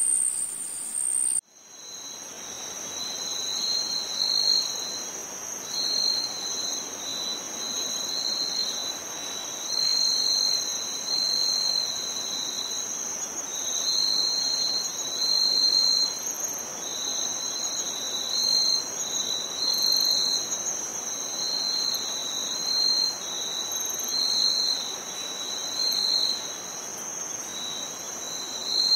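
Insects chirping: one steady high-pitched trill with a second, lower chirping call that pulses on and off about once or twice a second. About a second and a half in, a different high tone cuts off abruptly and the chirping takes over.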